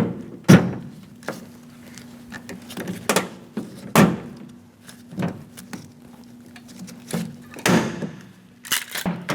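Pop rivets being set with a hand rivet tool: a string of sharp, irregularly spaced clicks and snaps.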